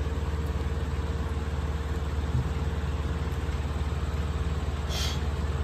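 Steady low machine hum with a constant tone over it, from a running appliance. A brief soft rustle about five seconds in.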